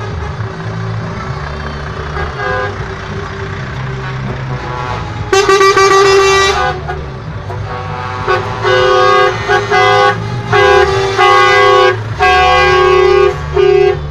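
Trucks' diesel engines rumbling as they drive slowly past, with truck air horns sounding: one long blast about five seconds in, then a string of about six shorter blasts near the end.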